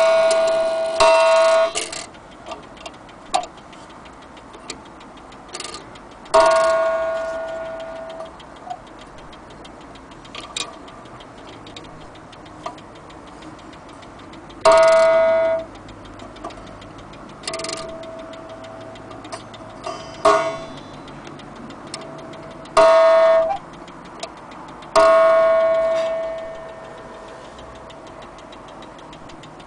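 The coiled wire gong of an antique French mantel clock struck by its hammer about seven times at irregular intervals, each strike ringing at one pitch and dying away, some cut off short. The movement ticks faintly between the strikes.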